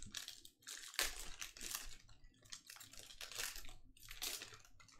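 Foil wrapper of a Panini Contenders football card pack crinkling and tearing as it is ripped open by hand, in three spells of crinkling.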